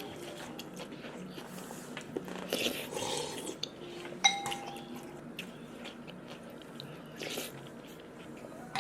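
Crunchy biting and chewing, with a single sharp ringing clink about four seconds in.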